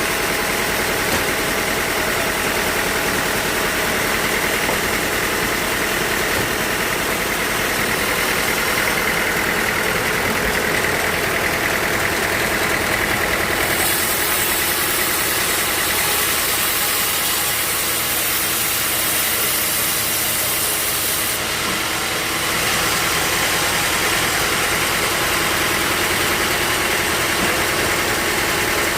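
Sawmill machinery running steadily, an engine-like drone, with a higher hiss joining for several seconds in the middle.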